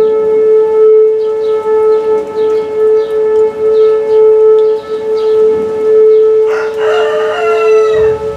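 Outdoor tornado warning siren sounding a steady tone at constant pitch, swelling and dipping in loudness about once a second. Near the end a second wavering tone with falling pitch joins briefly.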